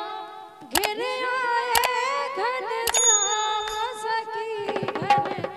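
A woman's voice sings a gliding devotional bhajan melody over held harmonium notes. Sharp hand-drum strokes fall about a second apart, a bell-like ring sounds about three seconds in, and a quick run of drum strokes comes near the end.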